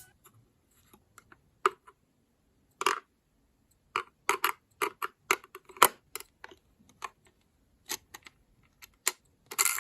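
Irregular crisp clicks and small crackles, some single and some in quick clusters, with short quiet gaps between them, typical of slime being pressed and poked by hand.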